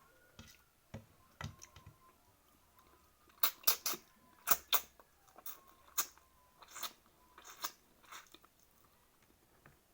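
A person chewing food, with a run of short sharp mouth clicks and crunches, thickest from about three to eight seconds in.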